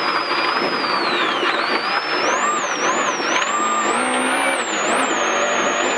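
Rally car engine running hard at high revs along a straight, heard from inside the car, with a thin high whine that wavers up and down in pitch.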